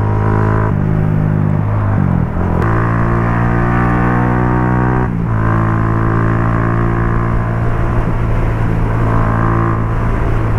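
Benelli RFS150i motorcycle's 150 cc single-cylinder engine with an aftermarket Racing Line exhaust, running steadily under way. Its note breaks and shifts briefly about two seconds in and again about five seconds in.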